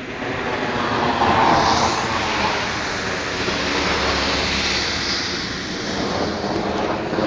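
Thunderlike roar of an aircraft overhead in the night sky, swelling over the first couple of seconds and then holding loud and steady.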